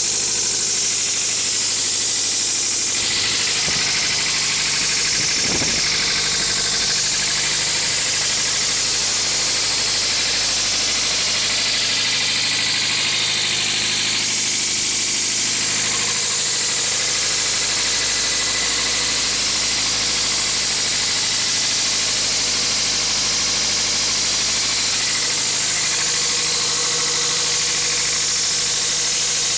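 2000 Toyota MR2 Spyder's 1.8-litre four-cylinder engine running steadily with a rattle that the owner cannot diagnose.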